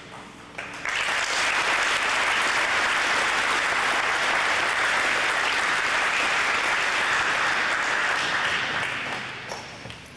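Audience applauding: the clapping starts suddenly about a second in, holds steady, and dies away near the end.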